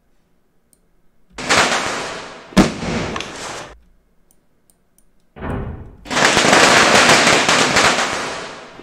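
Firecrackers going off in an open space, played back from a recorded clip: a burst about a second in, a sharp bang soon after, then a long crackling barrage that fades near the end. Reverb is automated in toward the end of the clip.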